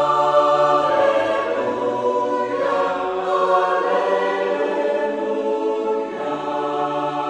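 Sustained choir chord, many voices holding notes together, the harmony shifting about two and a half seconds in and again near six seconds, used as a fantasy power sound effect.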